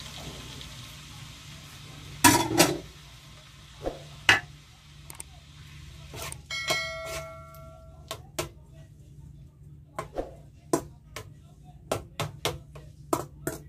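Chopped tomatoes sizzling in hot oil in a metal karahi, the sizzle fading over the first couple of seconds, then a metal spoon knocking and scraping against the pan as they are stirred, with repeated sharp clinks. One strike, about six and a half seconds in, rings on briefly.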